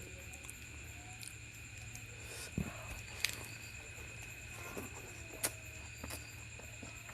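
Eating sounds: a few sharp mouth clicks and smacks from chewing a mouthful, over a steady low hum and a thin high steady whine.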